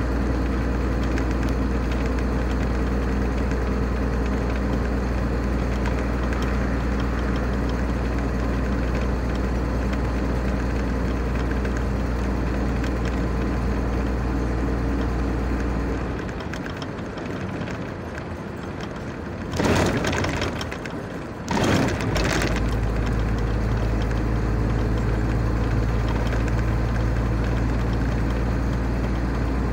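Steady drone of a car driving at motorway speed, heard inside the cabin: engine and road noise with a strong low hum. About halfway through, the low hum drops away for several seconds and two loud, rushing noise bursts cut in before the steady drone returns.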